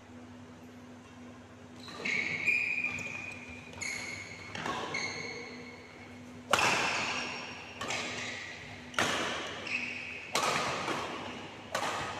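Badminton rally: a string of sharp racket strikes on the shuttlecock, starting about two seconds in and coming roughly every second, each echoing in the large hall. High shoe squeaks on the court mat come between the first few strikes.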